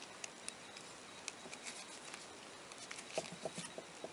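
Faint scattered clicks and rubbing of hands working a rubber grommet over wire terminals and onto a side mirror's sheathed wiring harness, with a short cluster of fuller rubbing sounds a little after three seconds in.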